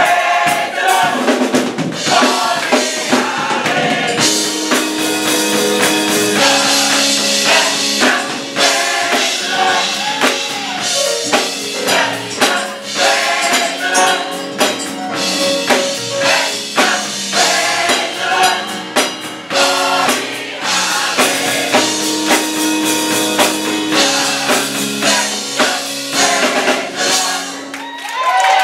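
Gospel choir singing with hands clapping along, over a steady drum beat and held chords.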